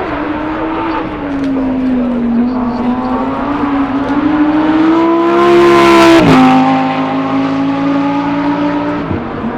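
Lamborghini Huracán Sterrato's naturally aspirated V10 running up the hill and passing close. It is loudest about six seconds in, where its pitch drops sharply as it goes by, then it carries on at a lower note.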